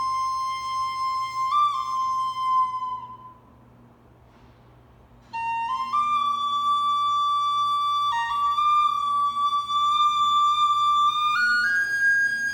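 Slow instrumental music: a single flute-like melody of long held notes. It breaks off for about two seconds a little after three seconds in, then comes back and steps upward in pitch.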